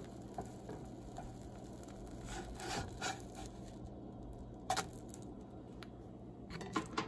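Slotted spatula scraping under a pancake on a frying pan and flipping it: soft scrapes a couple of seconds in, a sharp tap a little before five seconds, and a few light knocks near the end, over a low steady hum.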